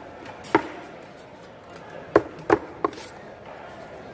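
A big knife chopping through a large fish and striking a wooden chopping block. There is one sharp knock about half a second in, then three in quick succession about two seconds in.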